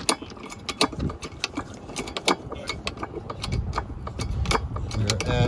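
A hydraulic bottle jack is being pumped by hand under a rail car axle as the steel wheel rises off the rail, giving a quick, irregular run of sharp metallic clicks. A low rumble builds in the second half.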